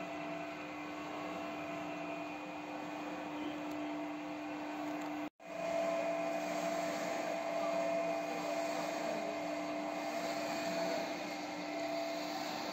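Screw press for solid-liquid separation running as it dewaters fungus residue: a steady machine hum with a constant tone, cutting out for a moment about five seconds in.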